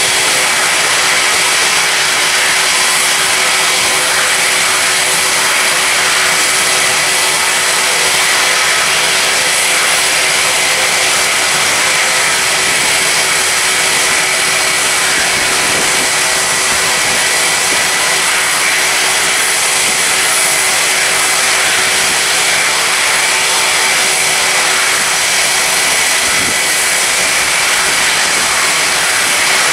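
Twin-engine widebody jetliner climbing out after takeoff, its jet engines at climb thrust: a steady roar with faint high whines on top.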